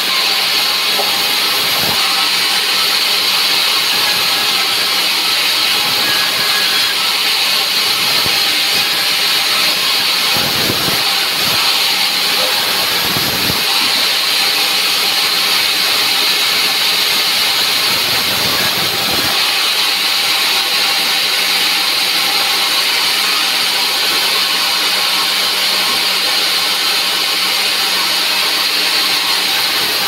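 Large vertical band saw running and cutting slabs of dry timber into boards, a steady high-pitched whine and hiss of blade and wood that never lets up. A few low thuds come about a third and about two thirds of the way through.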